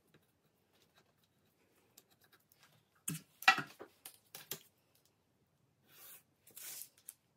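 A cluster of sharp knocks and clatters about three seconds in as the loaf tin and the ruler are moved and set down on the worktop. Near the end, two or three short scratching strokes of a pencil drawing along the ruler on baking parchment.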